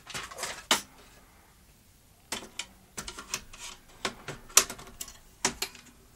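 Irregular clicks and knocks from hands handling parts inside an opened Philips N1700-type video cassette recorder, with a pause about a second in and a quicker run of a dozen or so knocks after.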